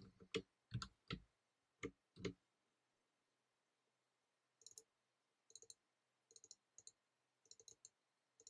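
Faint computer keyboard keystrokes: a handful of separate key presses in the first couple of seconds, then quieter little clusters of light clicks from about four and a half seconds in.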